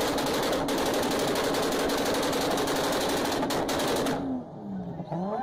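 Toyota Supra exhaust firing off rapid machine-gun-like bangs, the engine held on a rev limiter so that unburnt fuel goes off in the exhaust. About four seconds in, the bangs stop for about a second while a tone falls and rises, then they start again.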